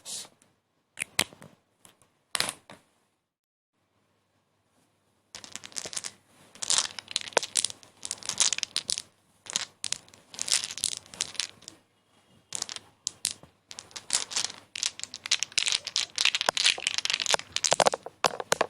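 Close-up crinkling and crumpling of a crinkly material, with a couple of short scratchy strokes and a silent pause of about two seconds near the start, then continuous irregular crackling from about five seconds in.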